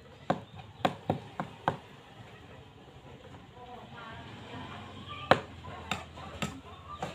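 Metal spoon clinking against a small bowl as food is scooped and stirred: five quick clinks in the first two seconds, then four more spaced about half a second apart around five to seven seconds in.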